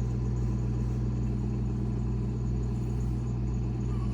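A steady low motor hum with no change.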